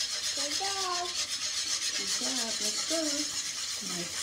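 Wire whisk stirring a wet waffle batter in a pan, a steady rasping scrape as dry ingredients are mixed into the egg and milk.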